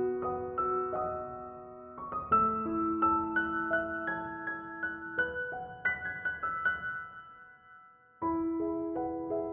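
Background piano music: gentle, sustained chords and single notes. It dies away about seven and a half seconds in, then starts again abruptly less than a second later.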